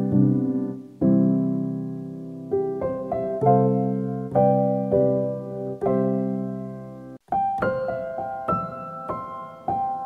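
Slow solo piano music, single notes and chords ringing on, with a momentary break about two-thirds of the way through.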